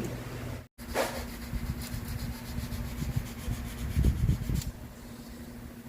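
Irregular rubbing and scraping handling noises over a steady low hum, with a few louder knocks about four seconds in.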